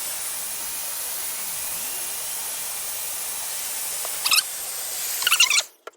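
Electric heat gun blowing steadily on a twist-on wire connector cap. Two brief, sharper high-pitched sounds come through near the end, and the gun cuts off abruptly just before the end.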